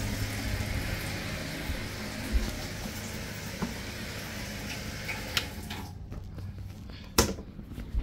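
Seawater hissing out of a leaking seacock fitting, stopping abruptly about six seconds in as the flow is shut off; a single knock follows about a second later.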